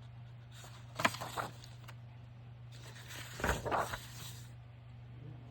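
Sheets of paper being handled and shuffled, with two short bursts of rustling, about a second in and again about three and a half seconds in, over a steady low hum.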